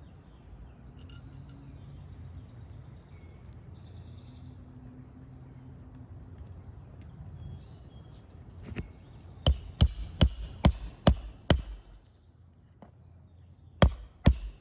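Hammer blows on a shingle roof: a quick run of about six sharp strikes about two-thirds of the way in, then two more near the end, over a low steady rumble.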